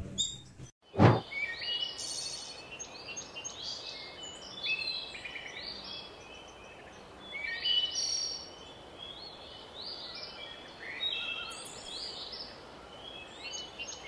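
Birds chirping and singing, with repeated short high calls and trills over a faint steady hiss. There is a single sharp click about a second in.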